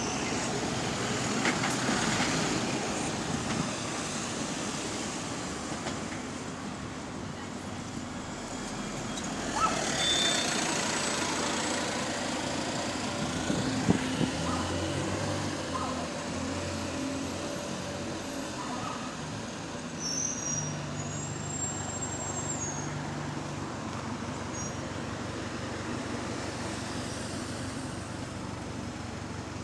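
Diesel engine of a bus with an exhaust leak running, heard over road traffic. A swell of noise comes about ten seconds in, and the engine's low drone sits steady for several seconds after the middle.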